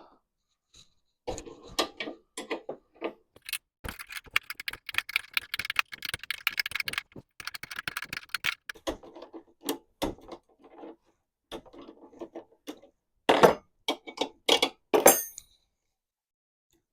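Hand tools working on a lawnmower wheel: scattered metal clicks, a dense run of rapid ratchet clicking a few seconds in, then a few louder metal clanks near the end.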